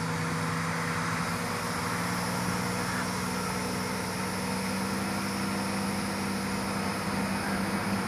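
Truck engine running steadily, its pitch stepping up slightly about two seconds in.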